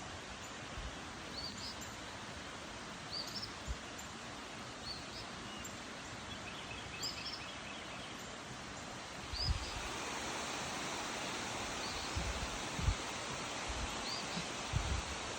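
Steady rush of falling water from a waterfall, getting a little louder about halfway through. Short rising bird chirps repeat every second or two over it, and a few low thumps come in the second half.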